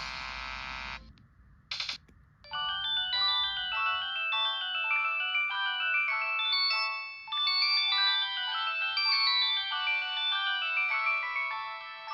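Samsung SGH-T809 mobile phone playing downloaded ringtones through its speaker. One tone cuts off about a second in, a brief blip follows, and then another polyphonic ringtone starts: a quick melody of many short notes with little bass.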